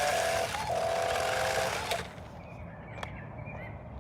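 1:12 scale remote-control truck's electric motor running with a steady whine over the hiss of its tyres on the ground, cutting off suddenly about two seconds in as the truck stops.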